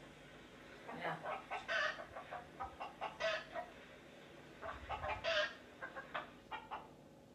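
Small curly-coated white dog giving quiet, half-hearted 'fake' barks: about five short stuttering bouts of quick little yaps and chuffs with pauses between.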